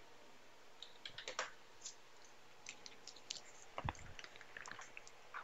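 Faint typing on a computer keyboard: scattered keystrokes, the command to show the switch's running configuration being entered, with a low thump about four seconds in.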